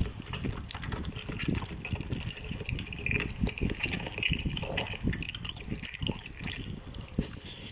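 Close-up wet chewing and slurping of food: a quick, irregular run of small smacks and squelches.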